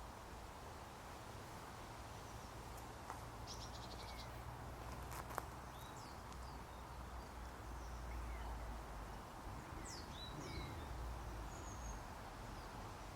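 Faint outdoor ambience: scattered short bird chirps over a steady low rumble, with a single sharp click about five seconds in.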